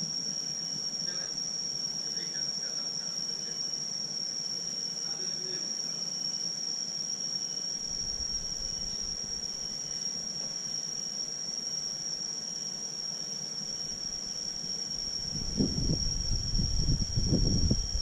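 Steady high-pitched insect drone, with faint short chirps in the first few seconds. Low rumbling gusts sound on the microphone near the end.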